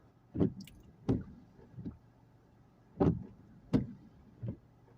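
Six short dull thuds, most in pairs about three-quarters of a second apart, with a pause of about two seconds after the first three, like footsteps.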